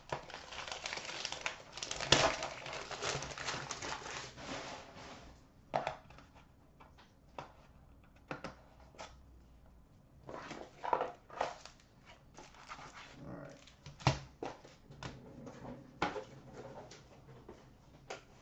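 Wrapping paper crinkling and tearing for about five seconds as it is ripped off a mystery box, loudest about two seconds in. Then quieter rustles with scattered clicks and knocks as a small cardboard box is handled and a stack of cards is set down, including one sharper knock about two thirds of the way through.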